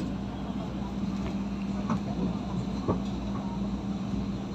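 PNR DMU 8103 diesel multiple unit train running, a steady diesel drone and low rumble heard from on board, with two light knocks about a second apart near the middle.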